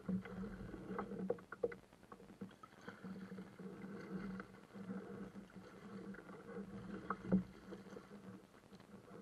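Small knocks and water noise against the plastic hull of a Perception Access 11.5 kayak as gear is handled aboard, under a low hum that comes and goes.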